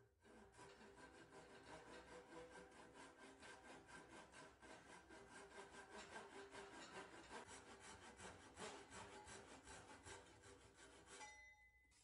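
A pull saw cutting a diagonal groove in a block of wood clamped in a vise, in quick, even, rasping strokes. The sawing stops about a second before the end.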